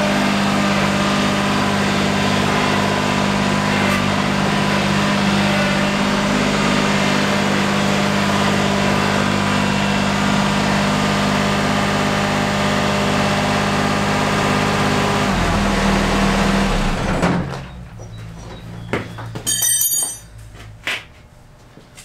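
Ford GT75 garden tractor's three-cylinder diesel engine running steadily while it is driven. Its note changes about 15 seconds in, and it shuts off a couple of seconds later.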